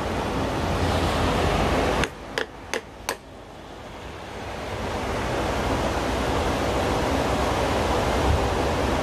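A steady rushing noise, like wind across the microphone. It drops away about two seconds in, and four sharp metallic clicks follow in quick succession as a steel pin punch is set into the rivet holes of a steel pulley. The rushing then builds back up.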